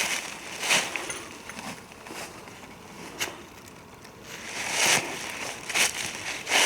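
Footsteps crunching through dry leaves on the forest floor, one uneven step after another, easing off for a couple of seconds in the middle before picking up again.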